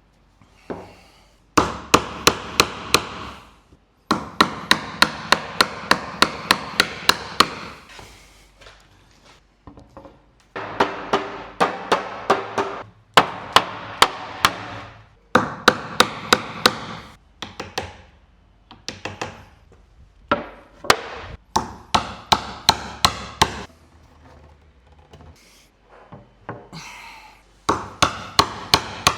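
Mallet striking a chisel into wood, chopping out the waste of finger-joint recesses by hand. Quick sharp blows, about four or five a second, come in runs of a few seconds with short pauses between.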